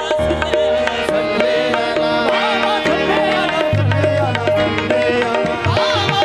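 Harmonium and tabla playing a qawwali instrumental passage: a harmonium melody over held reed tones, with the tabla's deep bass strokes getting stronger about three and a half seconds in.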